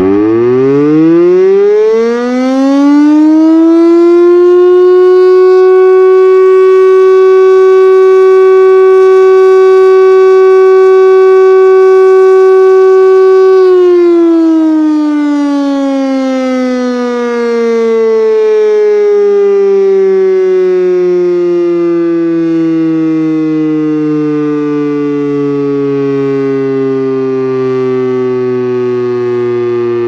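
STL-10 electromechanical tsunami siren sounding its short alert in a weekly test. It winds up, the pitch rising over the first few seconds, then holds one very loud steady tone for about ten seconds. It then winds down, the pitch sliding slowly lower as the rotor coasts.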